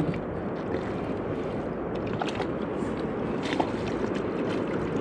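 Steady rush of wind and river water around a small fishing boat, with a few light clicks and knocks from handling gear about two and three and a half seconds in.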